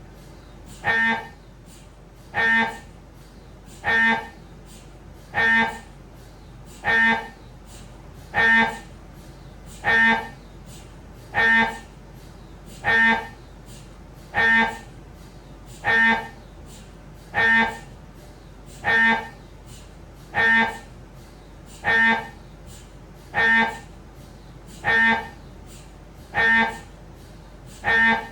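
Siemens Magnetom Avanto fit 1.5 T MRI scanner's gradient coils sounding a short pitched buzz about every one and a half seconds, each lasting about a third of a second, in a steady regular rhythm over a low hum.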